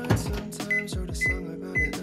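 Background music with a steady beat of deep bass-drum kicks that fall in pitch. From just past a half second in, a short high beep sounds about twice a second.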